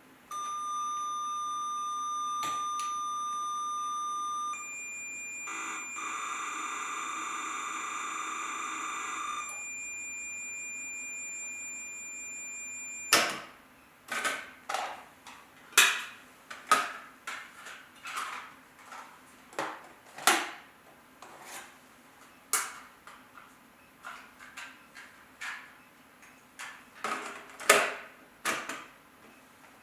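Cassette data-recorder tones from a NEC PC-8201 setup. A steady high beep gives way to a higher steady tone, then a few seconds of warbling data signal, then the higher tone again, which cuts off abruptly about 13 seconds in. Irregular sharp clicks and knocks follow, about one a second.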